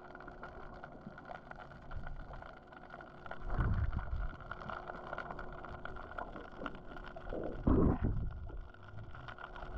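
Muffled underwater sound picked up by a GoPro in its waterproof housing: water noise with a steady faint hum, and two louder low rushes of water, one about three and a half seconds in and another near eight seconds.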